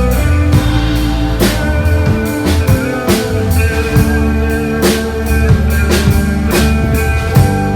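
Instrumental band music with a drum kit and guitar playing a steady beat.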